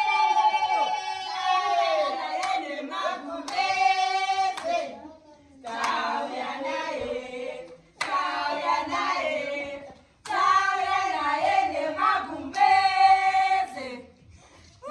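Women's voices singing together in a small room, with hand claps, in phrases that break off and start again several times.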